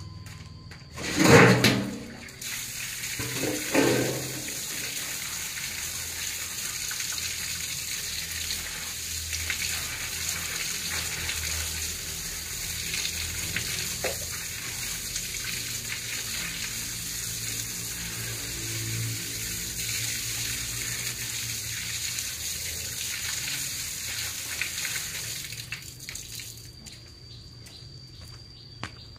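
Water running in a steady hiss, like a tap or hose, starting after two short knocks near the beginning and stopping abruptly a few seconds before the end.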